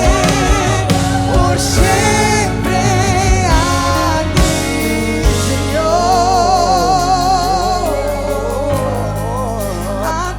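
Live worship music: a singer holds and bends long notes with vibrato over a full band, with a steady bass and a regular beat.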